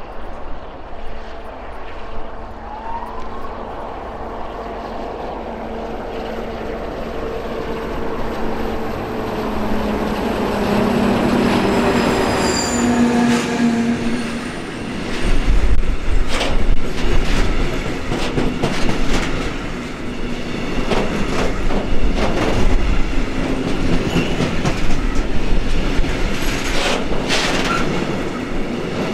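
A Soviet-built 'Ludmilla' diesel locomotive approaching and passing, its engine drone growing louder until about halfway through. Then a long train of hopper wagons rolls past with a low rumble, its wheels clattering rhythmically over the rail joints.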